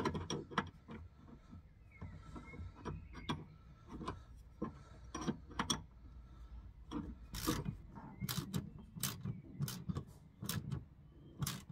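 Irregular small metallic clicks and rubbing as a gas pipe and its brass fitting are handled and a spanner is worked on the fitting, the clicks coming more often in the second half.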